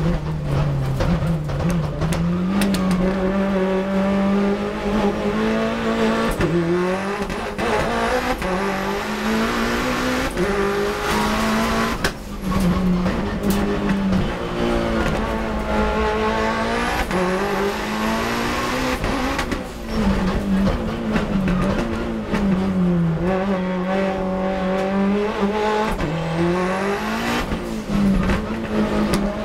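Race car engine heard from inside the cockpit, running hard under load, its pitch repeatedly climbing and then dropping at gear changes and lifts, with road and wind noise underneath.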